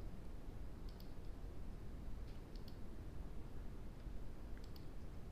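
A few faint, scattered computer mouse clicks, some in quick pairs, over a low steady room hum.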